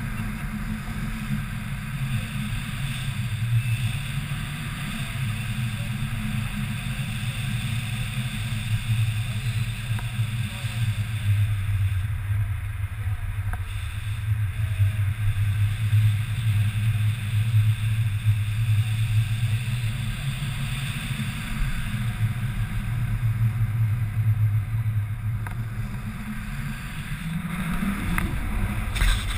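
Wind rushing over the camera microphone during tandem paraglider flight: a steady low rumble with a hiss above it.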